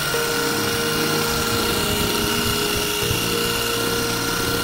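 HOTO cordless pressure washer running, its electric pump motor giving a steady high whine over the hiss of the water jet spraying.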